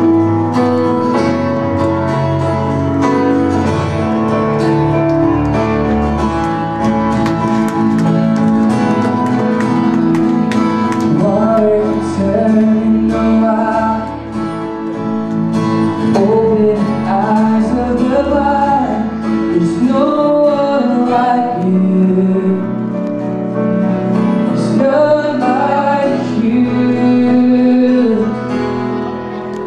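Live band music: strummed acoustic guitar and keyboard, with a man's voice singing over them from about a third of the way in.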